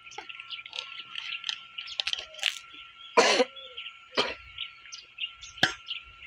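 Steel ladle scraping and clinking against a steel pot while cooked rice is stirred, with a few sharper knocks. A short cough about three seconds in is the loudest sound.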